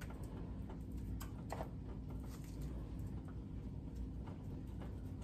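Faint, scattered soft clicks and scrapes of a spatula spreading thick cake batter in a disposable aluminum foil pan, over a low steady hum.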